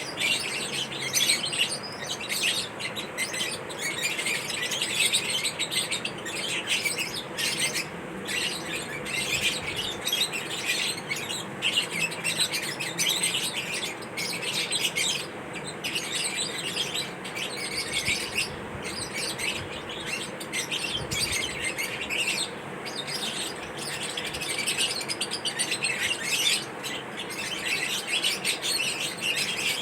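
Fischer's lovebirds chirping continuously, many rapid high-pitched chirps overlapping, over a steady background hiss.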